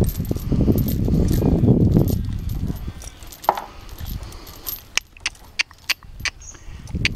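Metal chains hanging from a pony's harness clinking and jingling as she walks, a run of sharp separate clinks in the second half. The first few seconds hold a loud low rustling rumble.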